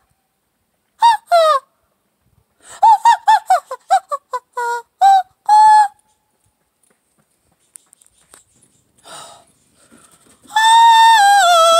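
Dogo Argentino howling on cue in a high, yodelling 'singing' voice. First come two falling calls, then a quick run of short rising-and-falling notes and a held note, and near the end one long howl that steps down in pitch.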